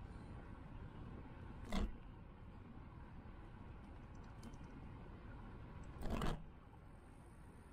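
Steady rolling and wind noise from an Evelo Omega electric bike riding along a paved path, picked up by a camera mounted on the bike. It is broken by two short clattering jolts, one just under two seconds in and a slightly longer one about six seconds in.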